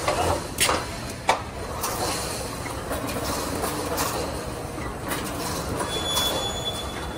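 Automatic wire mesh welding machine running: a steady mechanical din, with two sharp metallic clacks in the first second and a half and fainter clicks after.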